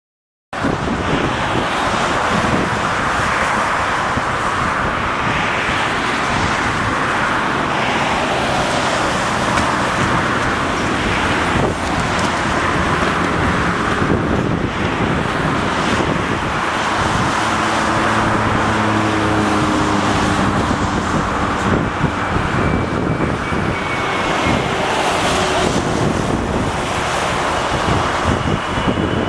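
Steady roar of an approaching Airbus A330-300 airliner's jet engines on final approach, heard against outdoor traffic and wind noise, with slow swells. The sound cuts in abruptly about half a second in, and a faint whine joins near the end.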